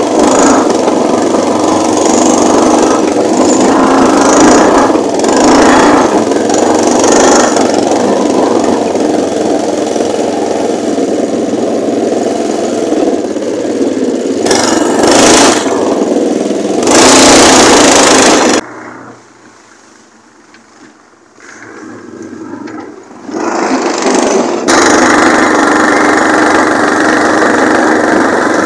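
The small engine of a homemade amphibious Jeep running under load as it drives over rough bush ground, with a few brief loud surges of noise. About two-thirds of the way through the sound drops away suddenly to a faint murmur for several seconds, then the engine running comes back just as loud.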